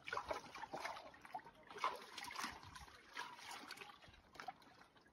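Quiet eating sounds: scattered short clicks and scrapes of spoons against sea urchin shells and plates, over a faint wash like lapping water.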